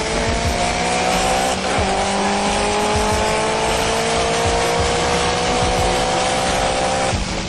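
Car engine at full throttle at freeway speed, its pitch climbing steadily, dropping once with a gear shift about two seconds in, then climbing again. Heavy wind and road noise throughout.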